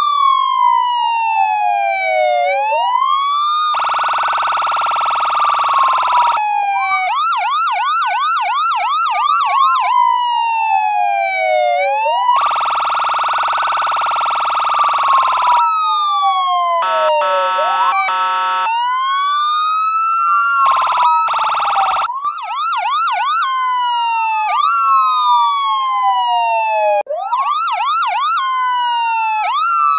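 Electronic emergency-vehicle siren run through an amplifier, switching between its tones: a slow wail gliding down and back up, a fast yelp of quick repeated chirps, and long, steady electronic air-horn blasts. Two short horn blasts come in a little past the middle.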